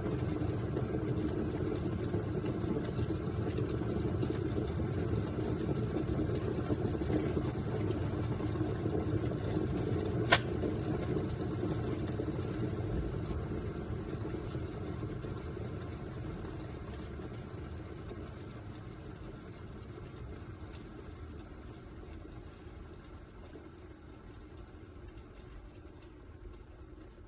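Hamilton Beach glass electric kettle heating water, a steady low rumbling. A single sharp click comes about ten seconds in, after which the rumbling slowly dies away.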